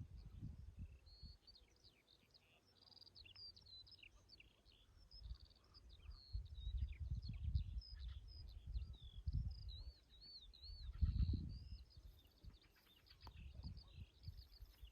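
Several songbirds chirping and singing in short, overlapping phrases and trills, over irregular low rumbling surges that are the loudest part of the sound.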